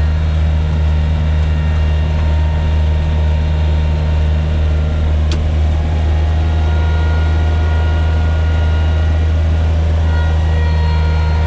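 John Deere 1445 front mower's diesel engine running steadily under load, driving its front-mounted snow blower through packed snow. One sharp click about five seconds in.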